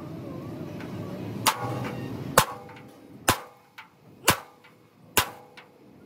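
A hammer striking metal in a steady rhythm of about one blow a second.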